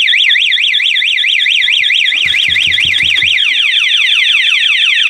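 Cyclone C-11 motorcycle alarm siren sounding in anti-theft mode, set off by the ignition being keyed or tampered with while armed. It warbles rapidly up and down, then about three and a half seconds in switches to a run of quick falling sweeps, and stops abruptly.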